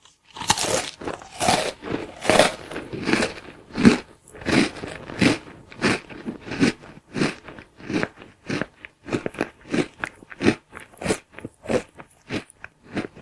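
A person munching crunchy food noisily, chewing in a steady rhythm of about two to three chews a second. The early chews are longer and the later ones shorter and quicker.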